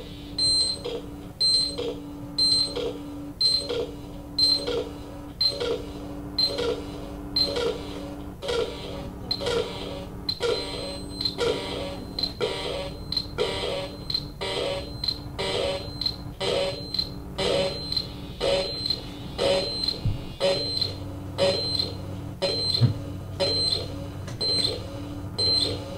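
Live electronic sound art from a laptop set-up: a steady rhythm of short high beeps with clicks, about two a second, over a steady low drone that breaks off now and then. A deeper hum comes in near the end.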